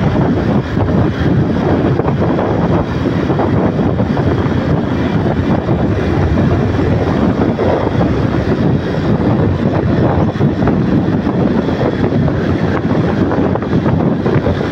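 Steady wind rush on the microphone of a moving motorbike, blended with the hum of its engine and tyres on the road.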